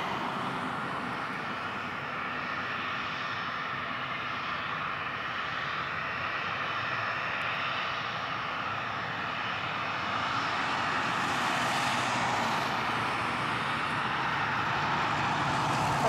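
Boeing 737-300's CFM56 jet engines heard from beside the runway as the airliner touches down and rolls out: a steady jet rush that swells louder about ten seconds in.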